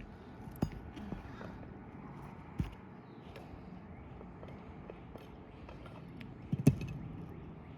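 A few scattered sharp knocks and taps from work on an asphalt-shingle roof during a shingle repair. The loudest is a quick double knock near the end.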